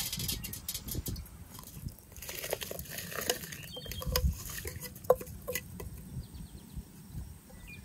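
Water and soaked rice poured from an enamel bowl into a stainless steel colander, the water splashing and pattering through the holes. A few seconds in, the drained rice is tipped into a pot of boiling water with a patter of grains and a few light clinks against the bowl.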